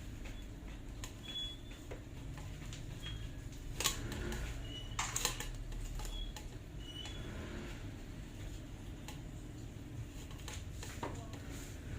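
Scattered clicks, clinks and short scrapes of small metal hand tools working on the mini melting furnace, with two louder knocks about four and five seconds in, over a steady low hum.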